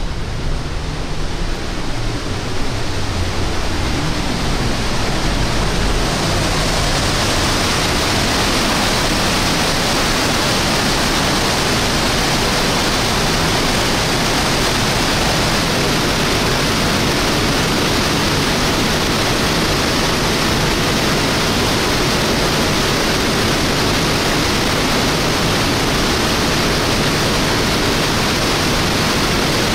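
The Rhine Falls, a large waterfall: a loud, steady rush of crashing water. It is muffled with a deeper rumble for the first few seconds, as heard from a rock passage, then fuller and brighter from about seven seconds in.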